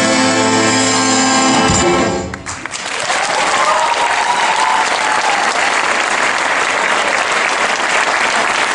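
An orchestra with violins holds the closing chord of a piece, which cuts off sharply about two seconds in. An audience then applauds steadily.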